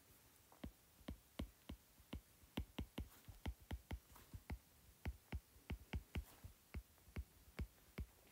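Stylus tapping and clicking on a tablet screen while handwriting figures: quick, irregular taps, several a second.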